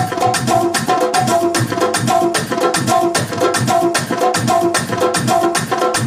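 Electronic keyboard playing a short repeating melodic riff over fast, steady hand drumming on tabla.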